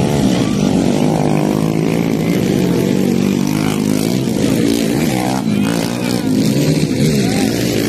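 Several dirt-bike engines revving hard as the motocross bikes race past, their pitches rising and falling across one another.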